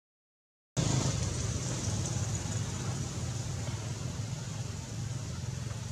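A steady low engine hum under a constant high hiss, starting abruptly about a second in.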